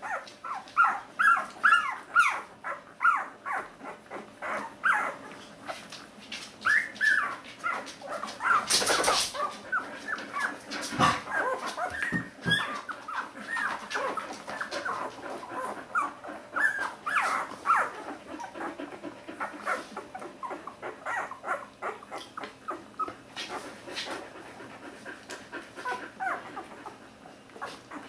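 A litter of week-old Border Collie puppies squeaking and whimpering: many short high calls tumbling over one another, busiest in the first half and thinning out towards the end. A short noisy burst about nine seconds in.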